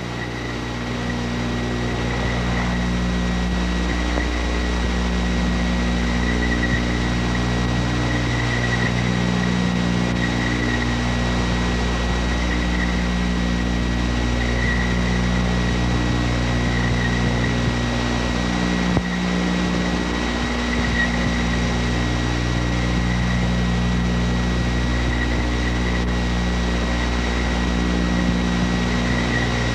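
A loud, steady low hum and drone with a few held low tones that switch on and off every second or two, and a thin high whine over a background hiss.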